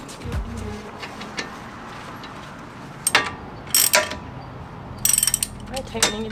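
Ratchet wrench clicking in short bursts as a loosened nut on the front suspension is worked off, with sharp metal clinks. The densest run of clicks comes about five seconds in.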